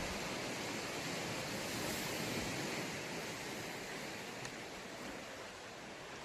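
Sea waves washing on the shore: a steady rushing wash that grows fainter over the second half.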